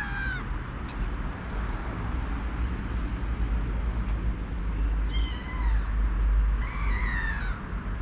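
Gulls calling: a few drawn-out, falling mewing calls, one right at the start and two more about five and seven seconds in, over a steady low rumble.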